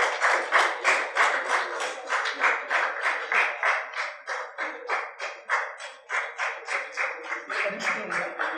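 Audience clapping together in a steady rhythm, about four claps a second, with brief dips in level partway through.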